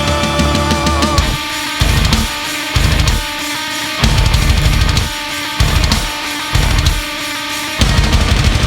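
Heavy rock music with distorted guitar and drums: a held chord that slides in pitch for about the first second, then loud stop-start hits, ending abruptly at the close.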